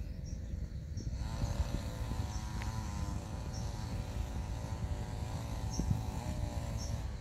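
A small engine running steadily with a slightly wavering hum over a low rumble. It starts about a second in and stops just before the end.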